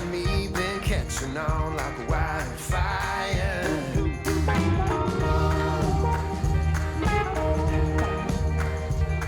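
Recorded country-pop song playing. Pitched melody lines bend up and down over the first few seconds, then a steady bass and sustained chords carry on.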